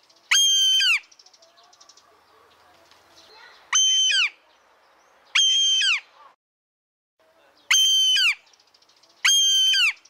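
Roadside hawk calling: five loud screams, each about half a second long, held on one pitch and then dropping at the end, spaced one to two seconds apart.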